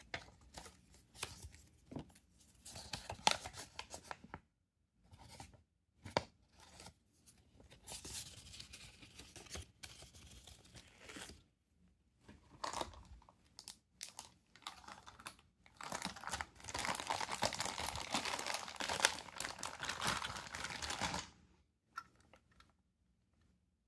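Thin plastic wrapping crinkling and rustling as toy train cars are handled and pulled out of it, in irregular bursts, with the longest and loudest stretch of crinkling in the second half.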